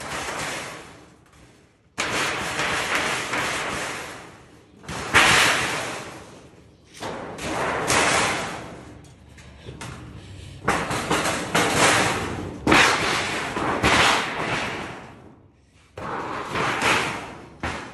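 Hammer blows on metal, about eight heavy strikes at irregular intervals, each starting sharply and dying away over a second or so.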